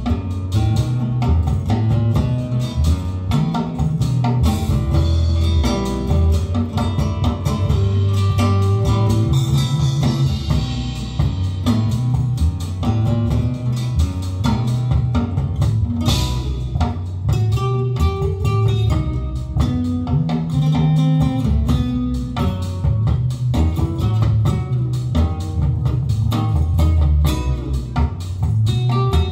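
Music with guitar, bass guitar and drum kit, played back through a pair of Borresen floor-standing loudspeakers in a high-end hi-fi system.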